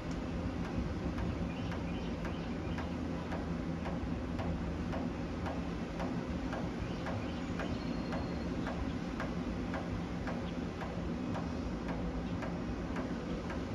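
Distant jet airliner flying high overhead, a steady low rumble, with a regular ticking about two to three times a second over it.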